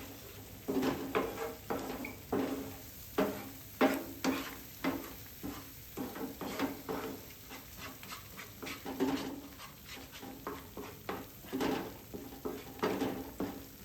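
A metal utensil stirring and scraping in a cooking pan, with repeated knocks that set the pan ringing briefly, over a steady sizzle of frying.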